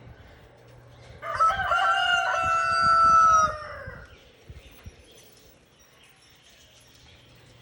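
A rooster crowing once: a single long call of nearly three seconds that drops in pitch at its end.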